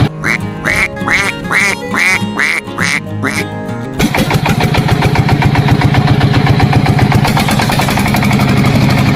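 A run of about eight short quacks in the first four seconds, then a small engine starts running steadily, a busy buzz, until just after the end.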